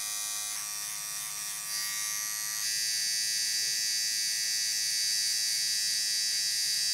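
Philips OneBlade electric trimmer buzzing steadily as it trims stray stubble on the upper cheek. Its tone changes slightly about two and a half seconds in.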